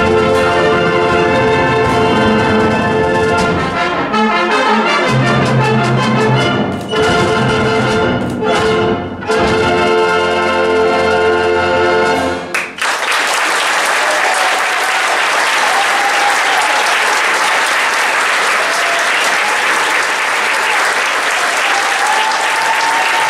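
A symphonic band of brass, woodwinds, basses and percussion holds the closing chords of a piece, which cuts off about halfway through. The audience then applauds steadily.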